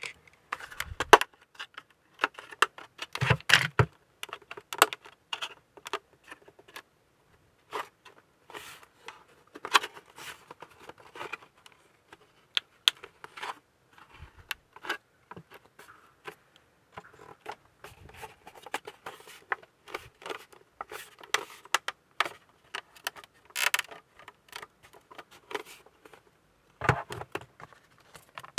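Plastic scale-model hull parts handled by hand: irregular clicks, taps and scrapes as the hull halves are turned, pressed and fitted together.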